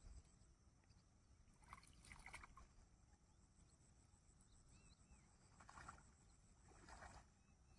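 Near silence: faint open-air ambience with a few faint, brief sounds, around two seconds in and again near the end.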